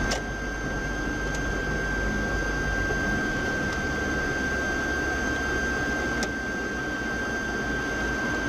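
Steady low rumble of a car's engine and running gear heard inside the cabin through a dashcam microphone, with a thin steady high whine over it and a couple of faint ticks.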